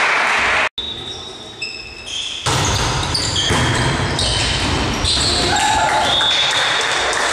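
Indoor volleyball rally: girls' shouted calls and ball hits echoing in a gym hall. The sound drops out for an instant just under a second in, at an edit cut.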